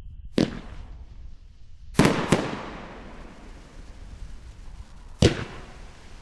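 500-gram fireworks repeater cake firing: four sharp bangs, the first about half a second in, two close together around two seconds in, and one near the end, each trailing off in a crackling echo.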